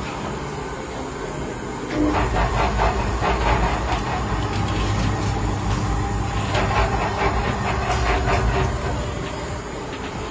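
Battered potato slices deep-frying in a wok of hot oil, with a wire-mesh strainer scraping and clattering against the metal as the fried pieces are lifted out. From about two seconds in until near the end, a low rumble runs under it and the clatter is busiest.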